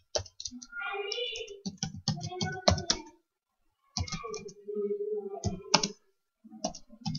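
Computer keyboard typing: a run of irregular keystrokes with short pauses, and an indistinct voice in the background.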